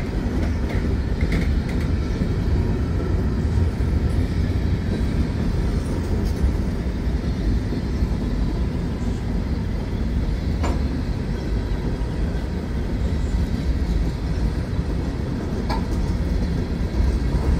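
Freight train of gondola cars rolling past: a steady rumble of steel wheels on the rails, with an occasional sharp click.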